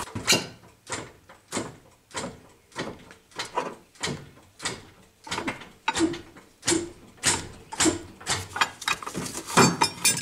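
Socket ratchet wrench cranked back and forth in short rasping strokes, about one and a half a second, unbolting the motor mount bolts.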